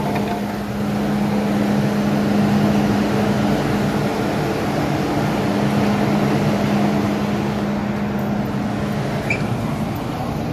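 MTR M-Train electric multiple unit running at speed, heard from inside the car: a steady rumble of wheels on track with a constant low hum from the traction equipment.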